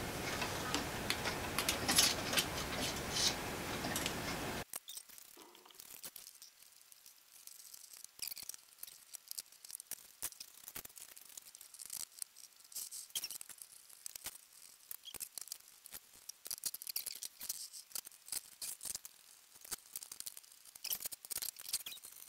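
Steady hiss for the first few seconds, then scattered light clicks and taps of black 3D-printed plastic clock gears and small metal hardware being handled and fitted into the clock's frame.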